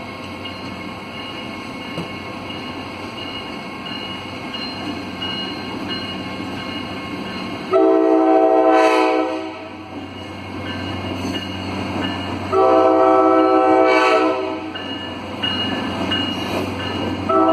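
Diesel locomotive's multi-note air horn sounding the grade-crossing signal: two long blasts, a shorter one, then the final long blast beginning near the end. Under it a crossing bell dings steadily, with a low engine rumble as the train approaches.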